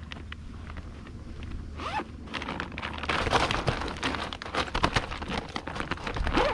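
Zipper of a fish bag being pulled along, mixed with rustling as a caught trout is stowed. A rapid rasping run of clicks starts about two seconds in.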